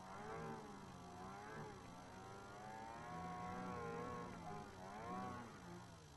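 Ski-Doo Summit 600 HO E-TEC snowmobile's two-stroke twin engine, its revs rising and falling over and over under throttle in deep snow, then settling to a lower, steadier note near the end.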